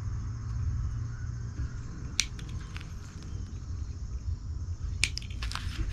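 Small trimming snips cutting Japanese black pine needles: one sharp snip about two seconds in, then a quick run of snips near the end. A steady low rumble lies underneath.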